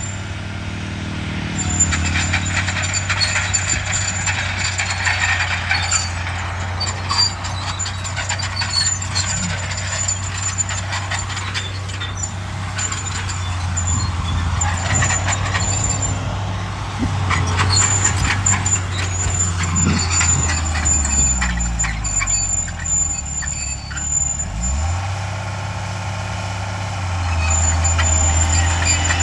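Diesel engines of heavy earthmoving machinery, a bulldozer and dump truck, running under load with scattered clanks and rattles. About three-quarters of the way through, the engine speed drops, then picks up again.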